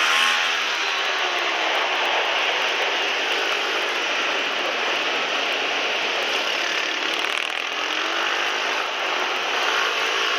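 Pit bike's small single-cylinder four-stroke engine running hard, heard from a camera mounted on the bike, with a dense rattling engine noise; the engine note drops right at the start and dips and climbs again near the end as the bike slows for turns and accelerates out.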